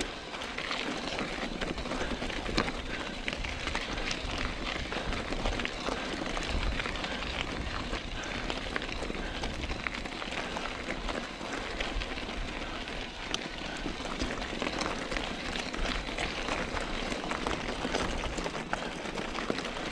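Tyres of an e-mountain bike rolling over the ground while riding: a steady noisy hiss full of small clicks and rattles, with wind rumbling on the microphone.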